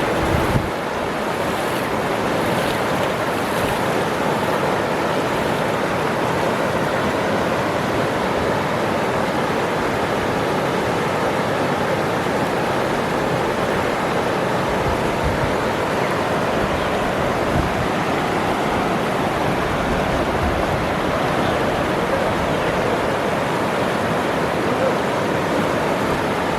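Waterfall: a steady, full rush of falling water.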